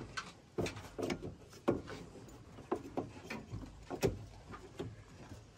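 A string of irregular knocks and clicks, a few of them with a low thud.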